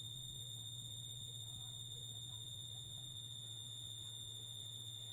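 Faint, steady high-pitched electrical whine with a low hum beneath it, unchanging throughout.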